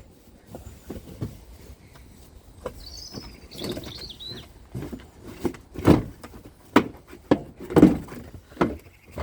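A series of knocks and clunks of work on the engine while the accessory drive belt is taken off, the loudest about two thirds of the way in. A bird chirps briefly near the middle.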